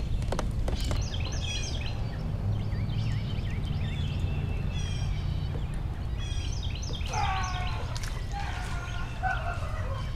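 Birds chirping and calling in quick, repeated short phrases, busiest in the second half, over a steady low rumble.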